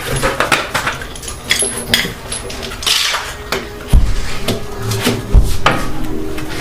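Metal hand tools and car parts clinking and clanking in a string of sharp knocks, with two heavier thuds about four and five and a half seconds in.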